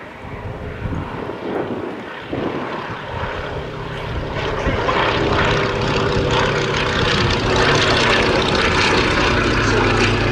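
Fairey Swordfish Mk I biplane's Bristol Pegasus nine-cylinder radial engine and propeller droning in flight, growing louder as the aircraft approaches over the first half, then holding steady and loud as it passes close by.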